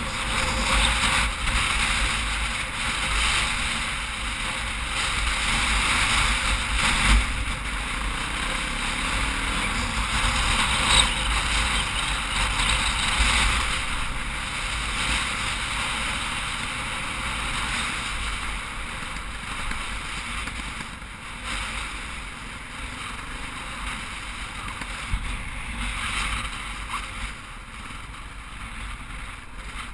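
KTM 450 dirt bike's single-cylinder engine running as it rides along a gravel road, mixed with a steady rush of wind on the helmet camera, with a few brief knocks from bumps.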